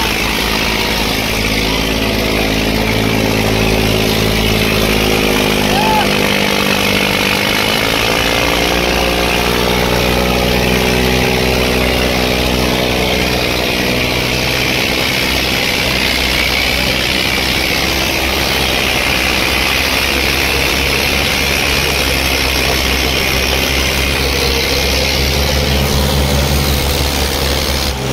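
Eicher 557 and Swaraj 855 tractor diesel engines running hard in a tochan tug-of-war pull. The engine note is loud and steady, and its pitch shifts and climbs around seven to nine seconds in.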